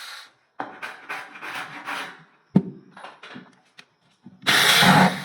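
Hand work on wood: irregular scraping strokes, a sharp knock about two and a half seconds in, a few light clicks, then a short loud burst of noise near the end.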